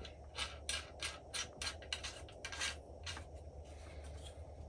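Sling swivel stud being turned by hand on its threaded adapter screw in a rifle's bipod mount, metal threads and fingers rubbing in a quick run of short scraping strokes, about four or five a second, that thin out after about three seconds.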